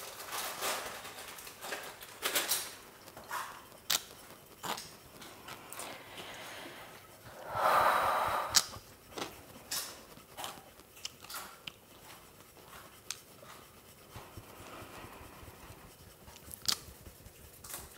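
A person chewing a crunchy snack loudly, with irregular crisp crunches throughout and a longer, louder burst about eight seconds in.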